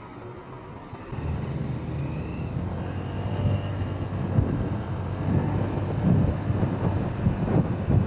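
Motorcycle engine pulling away from a stop about a second in and picking up speed, with growing gusts of wind on the microphone.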